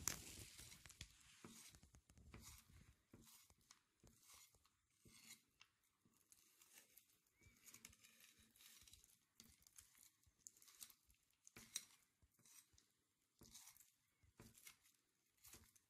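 Faint, irregular knife strokes and wet tearing as a fillet knife slices trout flesh away from the bones and the fillet is peeled back by hand, with a few sharper ticks among them.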